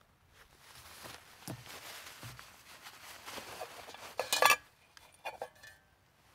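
Hands handling a metal camp mug and its kit, with soft rustling, then a sharp metallic clatter about four seconds in as gear comes out of the mug and the gas canister is set beside it, followed by a couple of light clinks.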